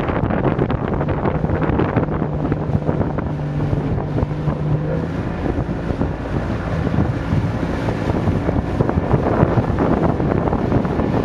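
Speedboat engine running at a steady pitch, with heavy wind buffeting the microphone.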